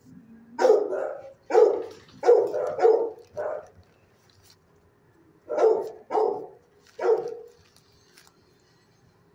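A dog barking in two bursts: a run of about six barks, a pause of about two seconds, then three more.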